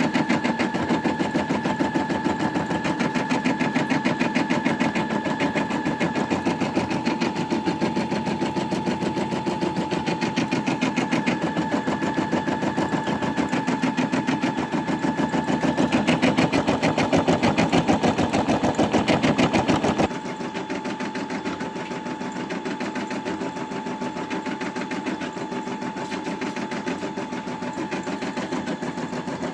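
Brother Innov-is M280D embroidery machine stitching out a design, a fast, even needle rhythm with a steady whine from its motor. About two-thirds of the way through it suddenly becomes quieter and carries on at the lower level.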